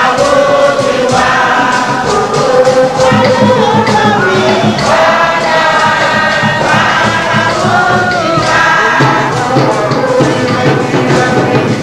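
A church choir and congregation singing a gospel anthem of praise, accompanied by percussion that strikes along with the song.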